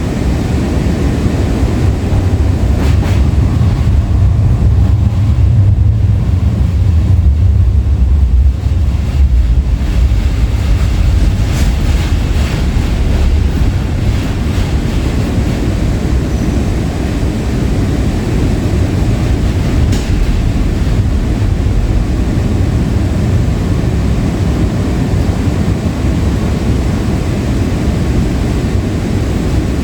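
Breda LRV3 light rail car running on the rails, heard from on board: a steady low rumble that swells for several seconds in the first third, with a few faint clicks.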